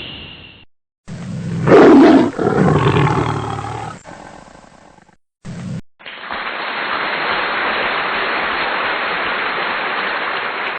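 Spliced-in sound effects: a loud roar about two seconds in that fades over the next few seconds, a brief burst, then a steady hiss of noise from about six seconds in.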